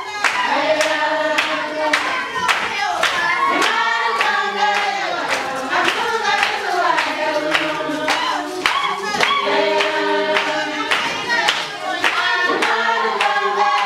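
A group of Marakwet women singing a traditional dance song together, with handclaps in a steady rhythm.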